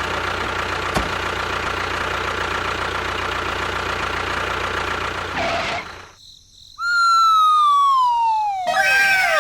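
A motor or engine running steadily, cutting off about six seconds in. After a short pause, a loud pitched whistle glides slowly downward, and a second falling whistle joins it near the end.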